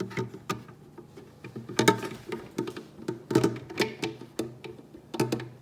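Plastic filter holder and water tank parts of a coffee machine being handled and tried in place, giving a run of irregular clicks, knocks and scratchy rattling.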